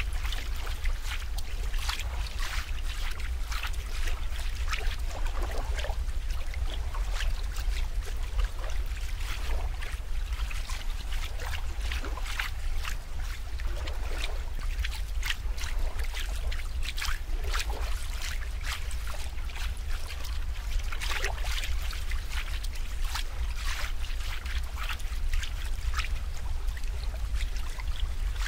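Water trickling and splashing, with many small, sharp drips and bubbling over a steady low rumble.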